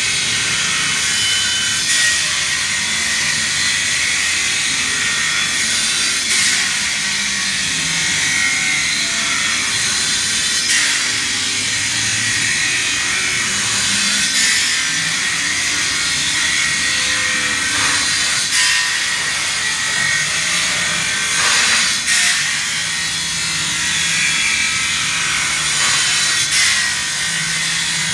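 Circular saw fitted with an abrasive blade cutting through steel street grating: a steady, high-pitched grinding noise with brief louder surges every few seconds.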